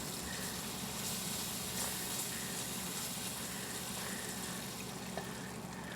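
Gravy of browned roux and pork drippings sizzling steadily in a hot pan as milk is poured in slowly.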